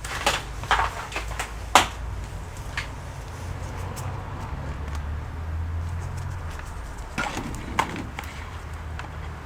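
Small sharp clicks and knocks from handling laptop parts on a workbench, a cluster in the first two seconds with the loudest near two seconds in, and two more about seven and eight seconds in, over a steady low hum.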